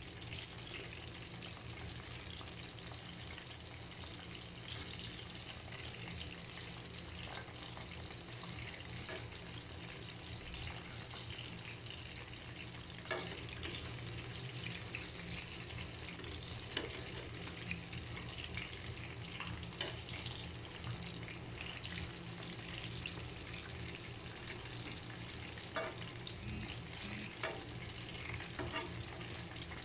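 Chicken wings frying in hot oil in a pan, a steady sizzle, with a few sharp clicks of tongs against the pan as the wings are turned.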